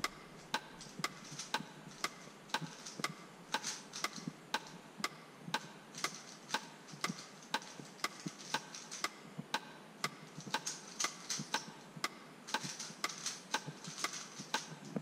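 Rubik's cube being turned fast in a timed speed solve: quick plastic clicks, two or three a second and unevenly spaced, with a soft rattle of the layers between them.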